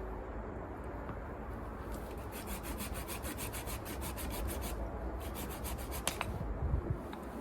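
Rapid, even scraping strokes, about six a second, begin about two seconds in, stop briefly, then resume for a second. A steady low rumble runs underneath.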